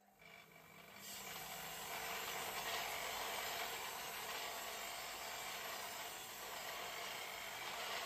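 Electric motor of a homemade pipe rust-removal machine starting up, building over the first second, then its abrasive wheel scouring a rusty square steel tube fed beneath it with a steady hiss as the rust is cleaned off.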